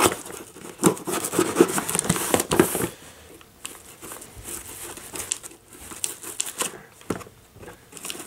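Packaging being sliced and torn open by hand: crinkling, tearing and scratching, busiest in the first three seconds, then scattered rustles and clicks.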